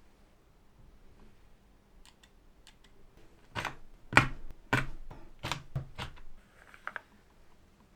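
A series of sharp plastic clicks and snaps from a NuPhy Halo65 V2 mechanical keyboard's switches being handled: a few faint ticks, then about seven loud clicks in quick succession from midway, and two weaker ones near the end.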